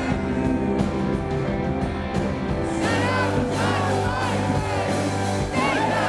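Live rock band playing loud: a male lead vocal over electric guitar and drums, recorded from the audience at a concert.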